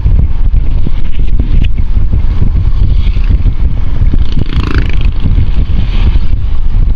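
Wind buffeting the microphone: a loud, unsteady low rumble, with a brief higher-pitched sound a little past the middle.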